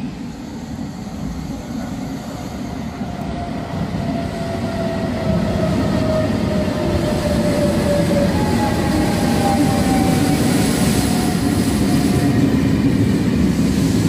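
Trenitalia TAF double-deck electric train arriving through an underground station, its rumble growing steadily louder as it nears. Thin whining tones slide slowly downward in pitch over it, from about two seconds in until near the end.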